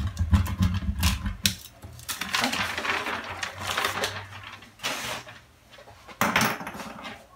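Serrated tracing wheel rolled along kraft-paper pattern sheets, a low rumble with clicks. Then the paper is slid and lifted, rustling for a few seconds, with two shorter rustles near the end.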